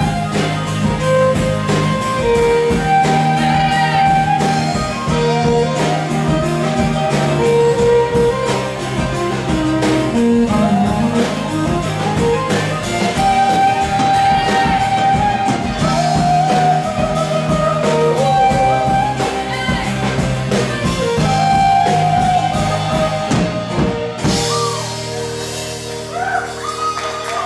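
A live band playing a song, with guitar and a drum kit keeping a steady beat. About 24 seconds in, the song ends on a held chord and the audience starts clapping.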